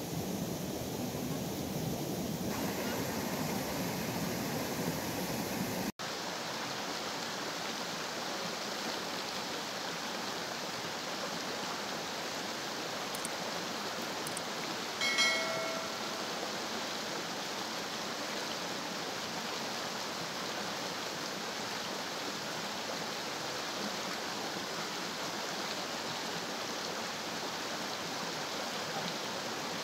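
Steady rushing of a stream, with a lower, windier rush until an abrupt cut about six seconds in. About halfway through, two quick mouse clicks and a short bell ding from a subscribe-button animation.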